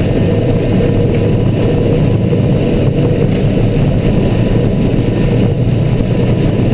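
Airbus A320 heard from the flight deck during its takeoff roll: a loud, steady rumble of the jet engines, airflow and wheels on the runway, with a faint steady hum.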